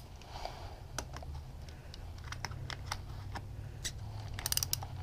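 Light clicks and taps of a 14 mm wrench working the plastic fuel filter housing on an outboard motor, scattered through, with a quick run of clicks near the end. A low steady hum underneath.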